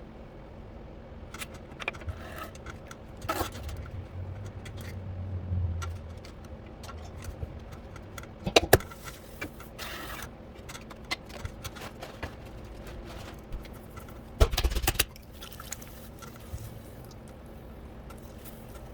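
Pottery wheel running with a steady low hum, while tools and ware knock, clink and scrape now and then. The loudest clatters come about eight and a half seconds in and again near fourteen and a half seconds.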